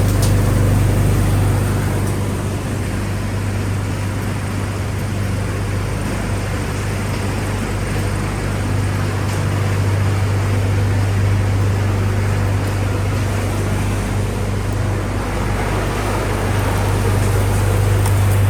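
Industrial recycling machinery running steadily: a constant low hum under an even mechanical noise, with no starts or stops.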